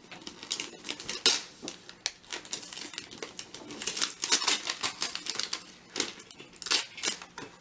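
Present packaging being handled and unwrapped: irregular crinkling and clicking of paper and plastic, with louder crackles about a second in and again near the end.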